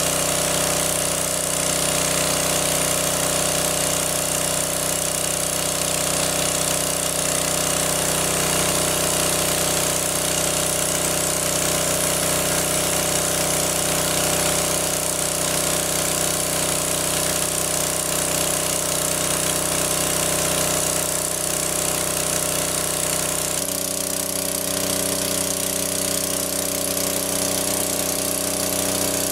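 Small engine-driven water pump running steadily, pumping water out of a lake. Its low rumble drops away slightly about 24 seconds in.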